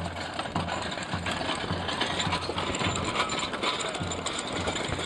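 Wooden-wheeled cannon carriage and handcart rattling and clattering as they roll over brick paving, mixed with the shuffle of many marching feet.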